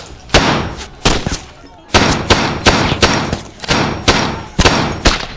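Gunfire in an indoor shootout: about a dozen loud shots at an uneven pace, some in quick pairs, each followed by a ringing tail.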